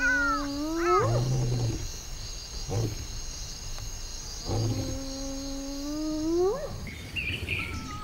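A large wild animal calling twice: each call is a long drawn-out note held low and steady that swoops sharply upward at its end. Short deep grunts come in between the calls.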